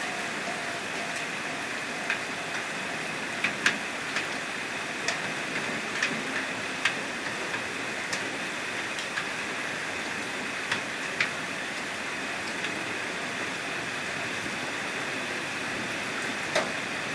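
Steady rain hiss with over a dozen sharp, irregular ticks of drops landing close by.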